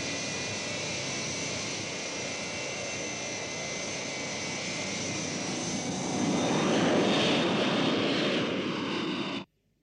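Jet transport aircraft taking off: a steady roar of jet engines with a high whine, swelling louder about six seconds in, then cut off suddenly near the end.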